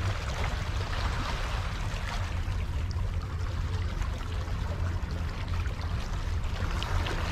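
Small waves washing and splashing against a rock ledge at the water's edge, with a steady low rumble underneath.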